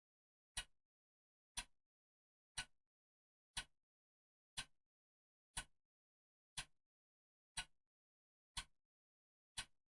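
Clock ticking steadily once a second: a sharp, dry tick with a short tail, and dead silence between ticks.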